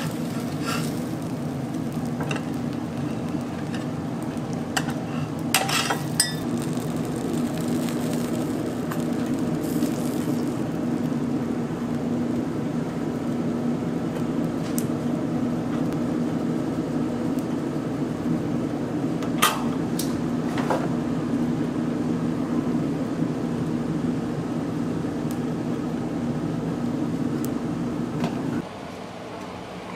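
Metal spatulas clinking a few times against a flat-top griddle and a cast-iron serving plate, over a steady low hum that cuts off near the end.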